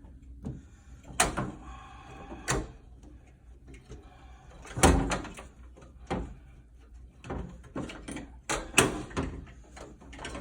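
Irregular knocks, clunks and scraping as the blower motor is worked loose and pulled out of an Amana PTAC heat-pump unit's housing; the loudest knock comes about five seconds in, another near nine seconds.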